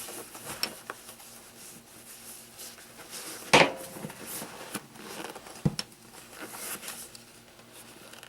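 Pocket knives being handled and packed into small storage bags: light rustling with scattered clicks and knocks, the sharpest about three and a half seconds in and another near six seconds.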